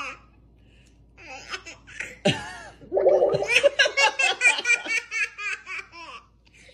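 A baby and a woman laughing together: a few short bursts after a quiet first second, then a long run of quick belly laughs from about three seconds in that tails off near the end.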